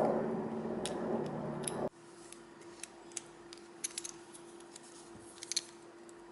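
Light metallic clicks and scrapes of lock-picking tools working in a small padlock's keyway. A louder stretch of handling noise cuts off suddenly about two seconds in, leaving scattered faint ticks over a low steady hum.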